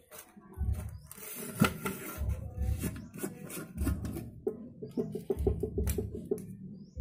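Grey PVC pipes being handled and rolled on a tiled floor: rubbing and light clicking, with repeated dull low thumps and a quick run of ticks a little past the middle.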